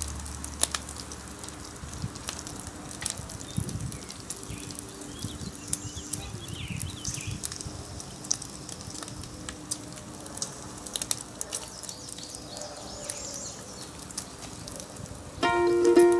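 Bacon frying in a cast-iron skillet: scattered sharp pops and crackles over a faint sizzle. Plucked mandolin music comes in near the end.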